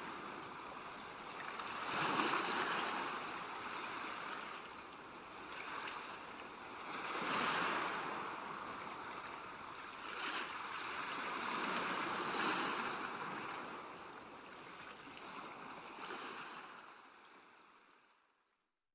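Ocean waves breaking on a shore, an even rushing surf that swells with each wave about every two to five seconds, then fades out to silence near the end.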